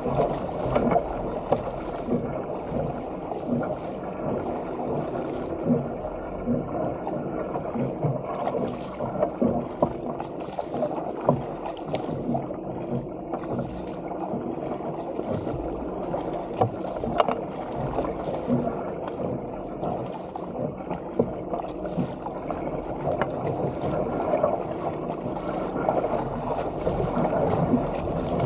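Sea water rushing and splashing along the hull of a sit-on-top fishing kayak paddled downwind through choppy water, with frequent short sharp splashes from the paddle blades and waves slapping the hull.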